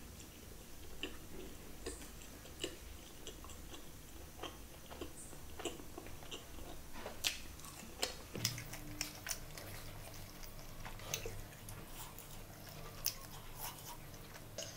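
Close-miked chewing of chicken curry and roti: irregular wet mouth clicks and lip smacks, coming thicker in the second half.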